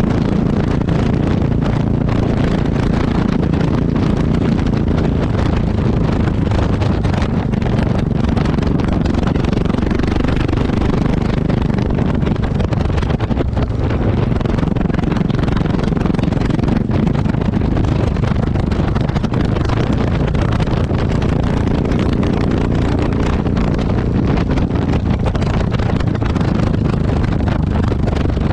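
Yamaha XT660X's single-cylinder four-stroke engine running at a steady speed, its exhaust heard loud and close from a camera mounted by the exhaust.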